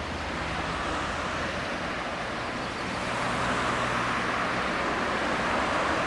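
Road traffic noise: a passing car's tyre and engine noise on the road, growing louder over the last few seconds.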